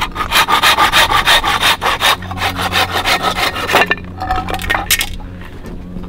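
Hand saw cutting through a length of dried bamboo with quick back-and-forth strokes. The sawing stops after about four seconds, followed by a few light knocks.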